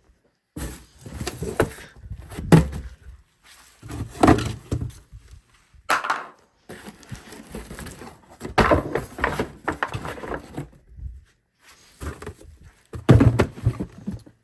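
Irregular thuds and knocks with rustling between them, from objects being handled and set down indoors; the loudest thuds come near the end.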